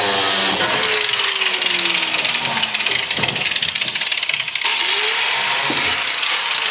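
A handheld power tool cutting out the cross piece in the bottom of a plastic garbage can, with a steady hiss throughout. Its motor slows with falling pitch just after the start, speeds up again about five seconds in and slows again at the end, with a knock about three seconds in.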